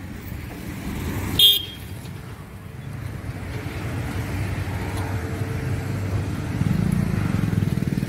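A vehicle engine running nearby, a low steady rumble that grows louder toward the end, with a short horn toot about a second and a half in.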